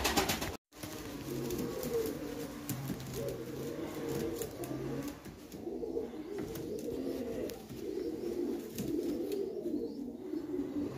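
Several domestic double-crested pigeons cooing, their low calls overlapping one another without a pause.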